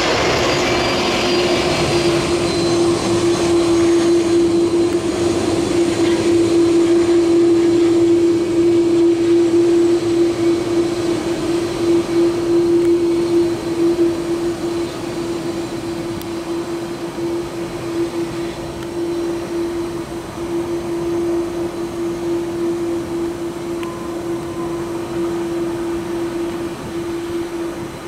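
Twin GE CF6-80E1 turbofan engines of an Airbus A330-203 running at taxi power as the jet rolls past, a steady droning tone over a rumble that is loudest in the first half and eases off about halfway through as the aircraft turns away.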